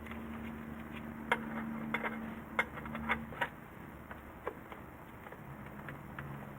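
Several light, sharp clicks and knocks at irregular intervals, like tools or parts being handled, over a faint steady hum that stops a little past three seconds in.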